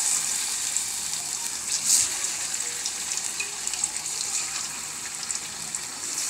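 Marinated chicken pieces sizzling and crackling in shallow hot mustard oil in an iron karahi. The sizzle swells louder about two seconds in as more pieces are laid into the oil.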